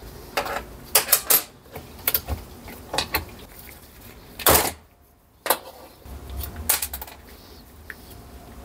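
Light metallic clicks and clinks as the cam lever, pinch bolt and brake cam are worked off a motorcycle rear drum brake panel and set down on a sheet-metal bench, with one louder knock about halfway through.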